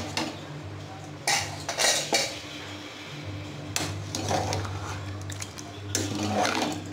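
Metal clanking as an aluminium pressure cooker's lid is taken off and a metal ladle scrapes and knocks against the pot while the chicken masala is stirred. Several separate clanks sound over a steady low hum.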